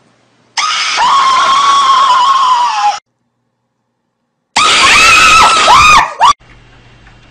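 Two loud screams of fright at a jump-scare. The first is long and held, dropping slightly in pitch over about two seconds. After a short silence a second scream wavers up and down and cuts off.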